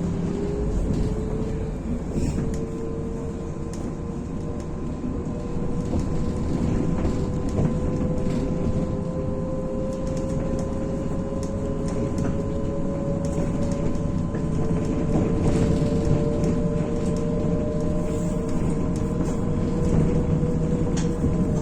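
Interior sound of a MAZ-105 articulated city bus underway: the engine and drivetrain run steadily under a whine that slowly rises in pitch as the bus gathers speed, then drops near the end.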